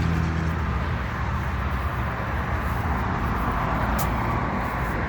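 Steady low rumble of vehicle noise, with a brief click about four seconds in.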